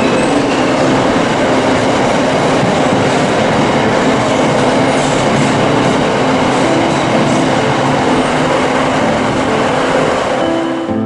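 Container freight train passing at speed, its wagons rolling by with a loud, steady noise of steel wheels on the rails.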